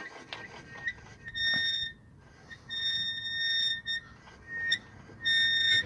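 A front disc brake squeals as the raised wheel is turned by hand: a high squeal that comes and goes several times. This is the brake noise being chased. The owner suspects the brake backplate is rubbing the disc, or a sticking caliper.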